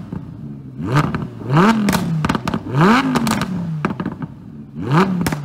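Lamborghini Huracan's V10 with a race exhaust, revved in four quick throttle blips. Each blip rises sharply and then falls back to a steady idle, with sharp crackles and pops from the exhaust as the revs drop.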